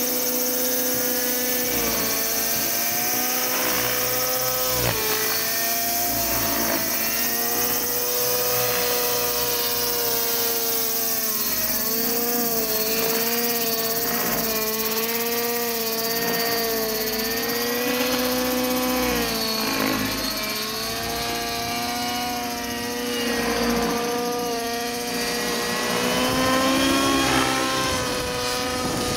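Nitro-engined RC helicopter flying aerobatics, its engine and rotor head whining steadily. The pitch dips briefly and recovers every few seconds as it manoeuvres.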